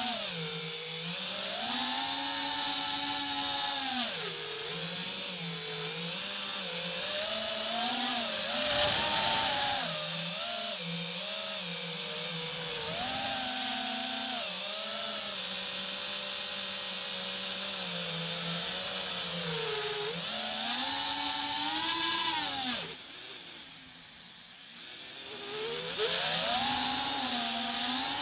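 FPV quadcopter's electric motors whining, the pitch rising and falling with each throttle change, with a brief drop in level about three-quarters of the way through before the motors spin up again.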